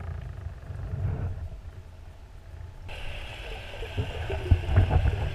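Underwater sound picked up by a GoPro Hero 3+ in its housing: a muffled low rumble, with a hiss coming in suddenly about three seconds in, followed by a scatter of sharp clicks and knocks.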